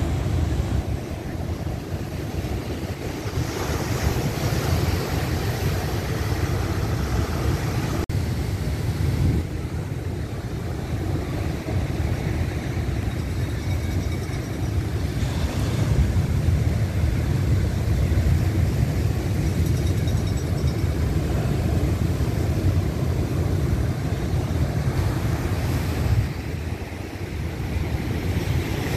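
Ocean surf breaking and washing over rocks, with wind buffeting the microphone in a steady low rumble.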